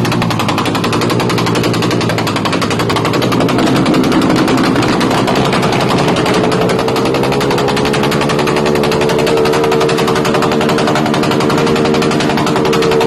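Suzuki Raider 150 carb's single-cylinder engine, breathing through an aftermarket AUN exhaust pipe, revved and held at high revs with a fast, rattling exhaust note. The pitch climbs about seven seconds in and stays high.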